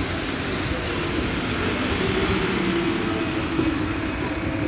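Mercedes-Benz Conecto city bus running close by: a steady engine drone mixed with street traffic noise.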